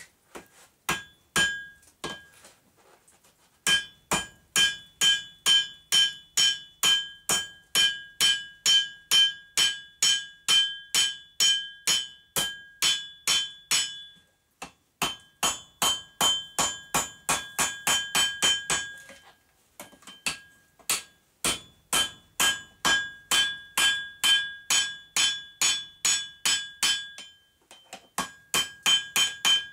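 Hand hammer striking a red-hot railroad spike on a steel anvil as it is forged into an axe head, at about three blows a second. Each blow rings with a clear metallic tone. A few blows come first, then long runs broken by short pauses.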